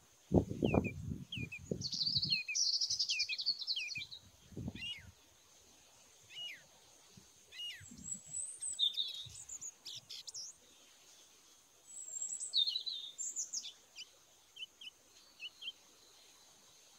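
Small songbirds chirping and twittering in short, scattered high calls. A low rumbling noise comes in the first two seconds and again briefly a few seconds later.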